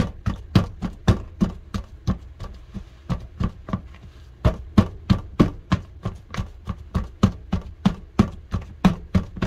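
Utensil knocking against a bowl while mashing pumpkin, about three sharp strikes a second, with a short pause about four seconds in.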